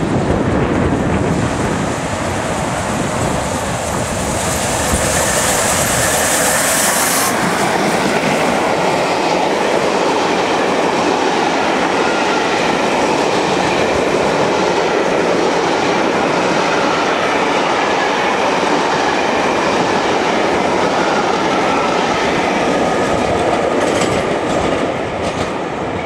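A train passing through the station at speed, its wheels clattering over the rail joints in a long, steady rush that fades near the end. A high hiss sits on top for the first several seconds and cuts off abruptly about seven seconds in.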